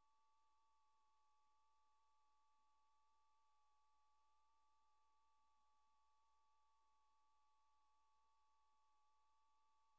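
Near silence: only a very faint, steady pair of tones with a low hum underneath, unchanging throughout.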